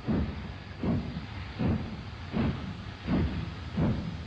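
Steam locomotive chuffing slowly and steadily, about six exhaust beats in four seconds, each beat a hissing puff of steam.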